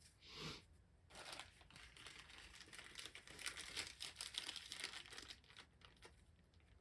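Faint, irregular crinkling and rustling of packaging being handled.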